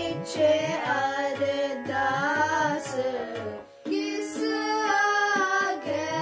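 Two children singing a Sikh kirtan hymn together over a held drone and a tabla beat. The singing and accompaniment break off briefly a little under four seconds in.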